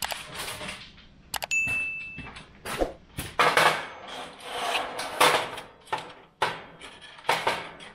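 Aluminium foil drip pan crinkling and scraping against the stainless-steel grill as it is pushed into place, a run of irregular rustles and knocks. A short high ring about a second and a half in.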